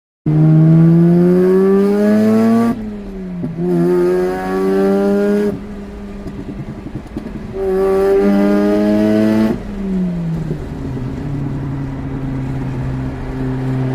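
Mazda RX-8's twin-rotor Renesis rotary engine accelerating through the gears: the revs climb three times, falling back at gear changes and lifts in between, then settle into steady running at lower revs from about ten seconds in.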